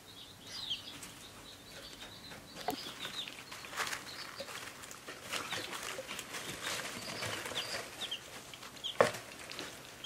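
Baby chicks and ducklings peeping: short, high, falling cheeps scattered throughout, with light clicks and rustling in wood-shaving bedding and one sharp knock about nine seconds in.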